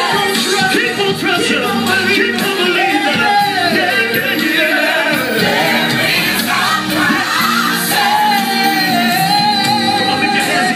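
Live gospel singing with band accompaniment: sliding vocal runs over the band, then a long held note about eight seconds in.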